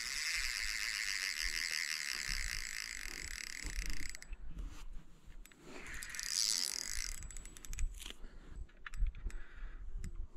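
Fishing reel whirring with a fine rapid ticking for about four seconds, then stopping suddenly. A shorter burst follows about two seconds later, then scattered clicks. The reel is under load from a snagged spoonbill (paddlefish) bending the rod.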